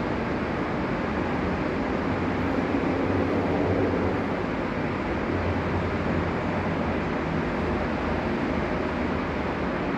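Steady rumble of a train in a station, with a low hum underneath.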